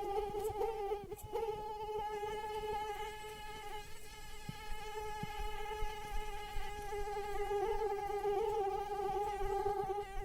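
Mosquito in flight: the continuous high-pitched whine of its wingbeats, a steady hum that wavers slightly in pitch and loudness.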